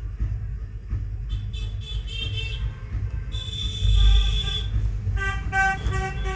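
Street traffic: a steady low rumble of vehicles with horns honking several times, a louder blast near the middle and a run of short honks near the end.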